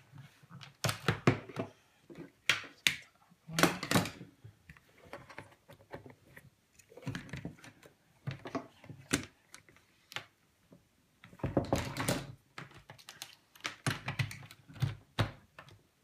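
Plastic electrical fittings and cables being handled and plugged together on a table: irregular clicks, knocks and rustles in short clusters.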